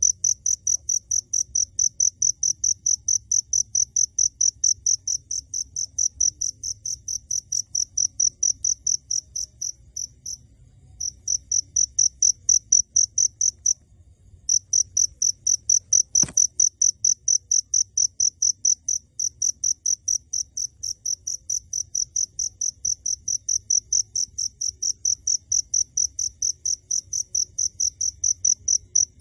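A cricket chirping loudly and close up: a steady, rapid train of short, high-pitched chirps. It breaks off briefly twice, about a third and halfway through. A single sharp click sounds just past the middle.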